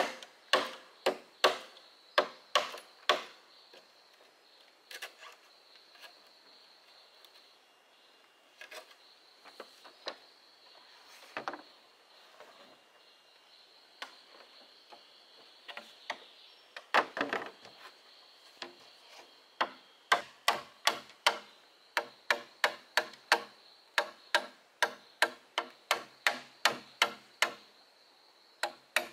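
A machete chopping into a green bamboo pole in quick, even strokes, about three a second. The strokes pause for a stretch in the middle, leaving scattered knocks and a short flurry, then resume at the same steady pace.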